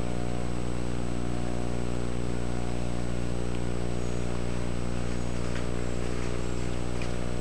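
Steady electrical hum and buzz, a stack of even, unchanging tones, with a faint steady high-pitched whine above it.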